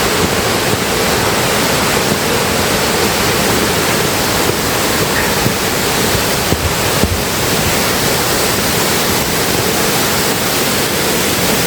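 Waterfall cascades rushing: a steady, loud, even roar of falling water.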